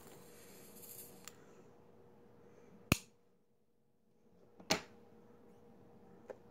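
Two sharp clicks nearly two seconds apart, with a fainter one near the end, over a faint steady hum.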